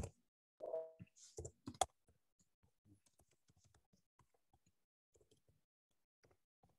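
Faint, scattered clicks and taps of typing on a computer keyboard and clicking, with a short pitched squeak about a second in.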